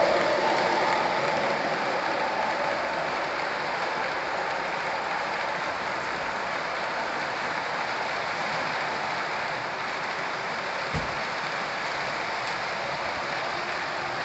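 O-gauge model train cars rolling past on three-rail track: a steady hiss of metal wheels on the rails, loudest at the start and easing slightly as the cars pass, with one short thump about eleven seconds in.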